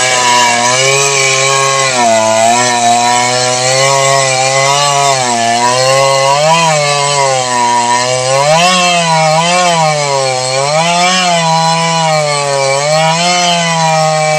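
Two-stroke petrol chainsaw running loud under load, cutting a tree. Its engine note dips and rises again and again as the chain bites into the wood.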